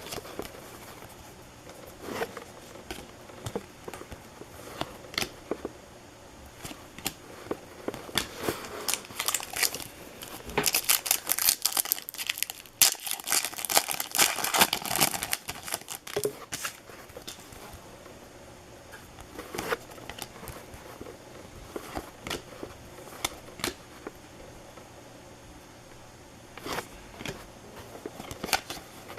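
Baseball card pack wrappers crinkling and being torn open, with cards handled and shuffled in between. A dense, louder stretch of crinkling comes in the middle.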